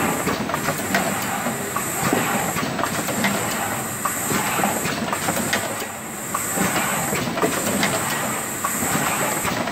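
Automatic carton forming machine with adhesive bottom sealing running: a continuous clatter of clicks and knocks as flat cardboard blanks are picked and folded into boxes. Over it runs a steady high hiss that breaks off briefly about every two seconds.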